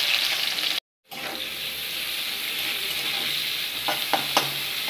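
Chopped onions sizzling as they fry in hot oil in a metal kadai, a steady hiss that drops out briefly about a second in. A few sharp clinks sound near the end as the onions are stirred.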